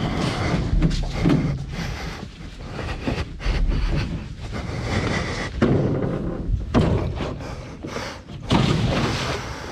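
A canoe being carried and moved down to the water, with irregular thumps and knocks from the hull over rustling and scraping. There is a louder thump near the end.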